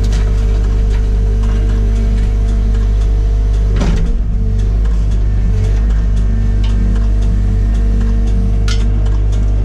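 Excavator's diesel engine running steadily at working speed, heard from inside the cab, as the arm and bucket work through gorse scrub, with small clicks and knocks. One louder knock comes about four seconds in.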